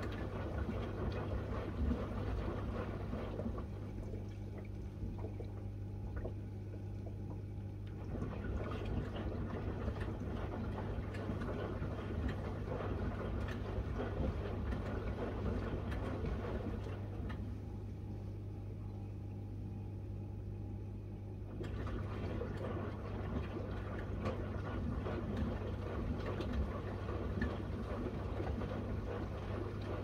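Miele W1 front-loading washing machine drum tumbling a wet load of laundry, with sloshing water over a steady low hum. The drum stops twice for about four seconds and then turns again, the usual back-and-forth of a wash action.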